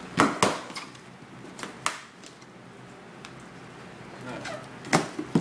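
A cardboard shipping box being cut open and handled: several sharp knocks and scrapes, the loudest just after the start and two near the end, with faint scratching between.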